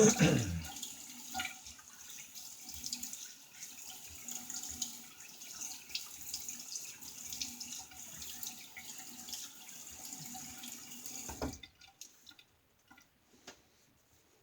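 Tap water running into a sink, with a loud splash at the start as he rinses after shaving; the water stops suddenly about eleven and a half seconds in.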